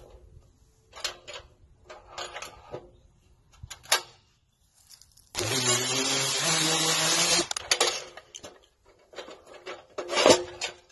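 Knocks and rubbing as a wooden board is set and clamped in a portable clamping workbench. About halfway through, a Makita random orbital sander runs against the board's edge for about two seconds with a steady low hum, then stops. More knocks follow as the board is repositioned in the clamp.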